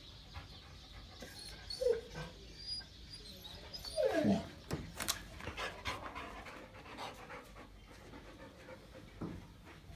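Dog panting and giving short whines, with a longer whine falling in pitch about four seconds in.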